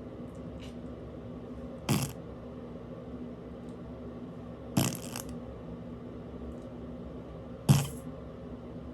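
Three short farts, about three seconds apart, the last the loudest, over a steady low background hum.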